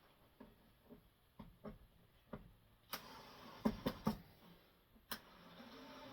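Workshop handling while a hairpin leg is fitted to a bench: scattered light taps and clicks, a few louder knocks near the middle, and a steady hiss in the second half.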